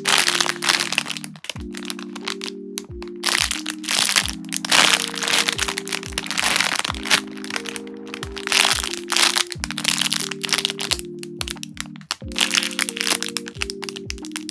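Clear plastic packaging of squishy toys crinkling and crackling in bursts as hands handle and press the bagged squishies. Lo-fi background music with soft sustained chords and bass notes runs beneath.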